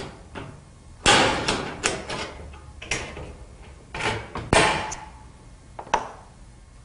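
Hand tin snips cutting through the lock rib of a steel roofing panel: a run of sharp metallic snips, unevenly spaced, with short pauses between cuts.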